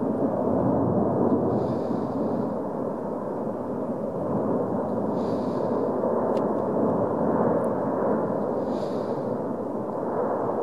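La Palma's Cumbre Vieja volcano vent roaring steadily as it throws up a fountain of lava and glowing spatter. A fainter high hiss returns about every three and a half seconds.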